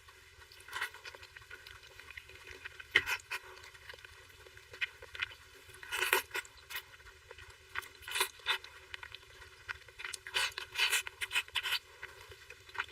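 Close-miked eating sounds of soft cake being chewed: irregular wet smacks and clicks of the mouth, some coming in quick clusters.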